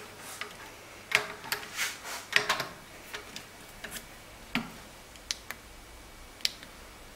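Irregular light clicks and taps from a digital dial indicator being fitted by hand onto a Bosch common rail injector in a clamping device, as it is set up to measure the ball valve stroke.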